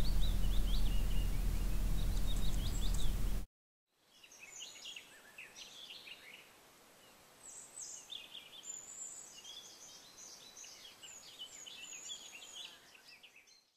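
Small birds chirping and singing. For the first three seconds or so this sits under a loud, even noise with a low hum, which cuts off abruptly. After a brief silence, fainter birdsong of quick chirps and short trills carries on.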